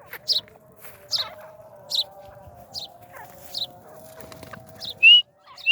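Birds chirping: a short falling chirp repeated roughly once a second, with two louder, clear whistled notes near the end.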